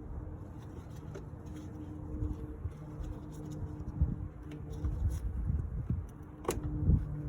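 A steady low machine hum with scattered light clicks and knocks, and one sharp click about six and a half seconds in.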